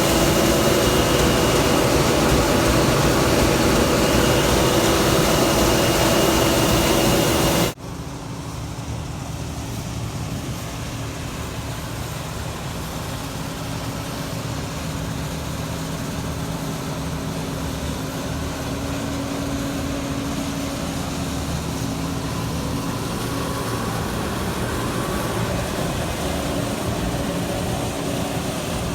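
Heavy farm machinery engines running steadily during wheat harvest. About 8 seconds in the sound cuts abruptly from a loud machine sound with several steady tones to a quieter engine hum whose pitch slowly rises a little.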